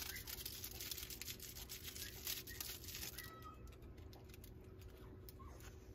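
Persian kittens rustling and scratching as they shift about in a plush cat-tree hammock, dense for the first three seconds, with a few faint, high kitten mews about three seconds in.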